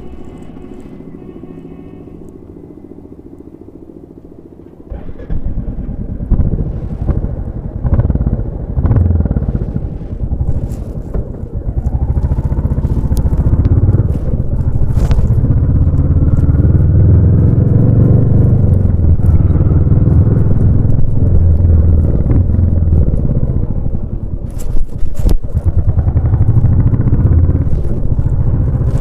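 Royal Enfield Bullet 350 single-cylinder motorcycle exhaust: the engine runs quietly for the first few seconds, then about five seconds in it gets much louder as the bike is ridden, and stays loud with rises and dips in engine speed and a few brief clatters.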